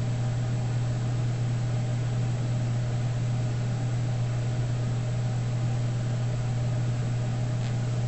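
A steady low hum under an even hiss, unchanging in level, with a faint click near the end.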